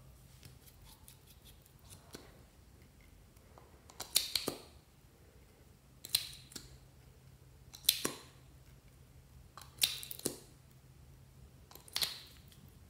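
Lip gloss applicator wand pushed into and pulled out of its tube, five short sharp click-and-scrape sounds about two seconds apart, several of them double. A few light ticks come before them as the tube is handled and opened.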